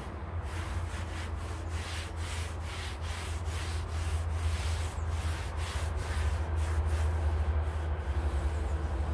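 Rhythmic rubbing or scrubbing strokes, about three a second, over a steady low hum.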